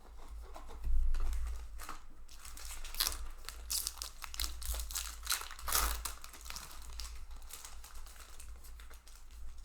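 Foil booster pack wrapper crinkling and being torn open by hand, a run of sharp crackles loudest about a second in.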